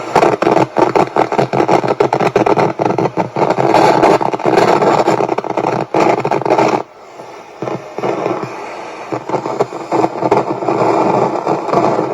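Soundwave SW-2900 multiband radio's speaker giving loud hiss and static with constant crackling while tuned to a VHF weather-band signal, dipping briefly about seven seconds in; the owner puts the noise down to a bad connection and dirty connectors.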